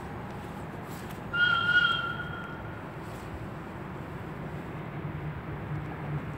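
Locomotive horn giving one high, steady blast of about a second and a half, starting about a second in: the Rp1 'attention' whistle signal. A low engine drone grows louder near the end.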